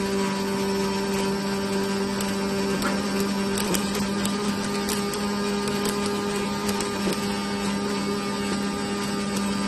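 Robotic welding cell running: a steady electrical hum in two pitches over a constant hiss, with a few sharp ticks in the middle.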